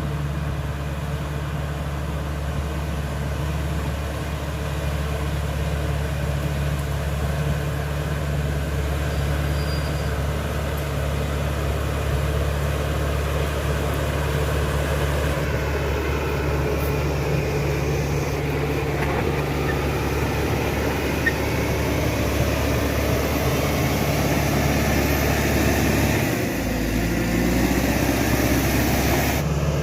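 CAT D5K XL bulldozer's diesel engine running steadily under work, its note dropping briefly near the end.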